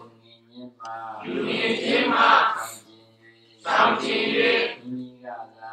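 A group of voices chanting a Buddhist devotional recitation in unison, in phrases of one to two seconds separated by short pauses.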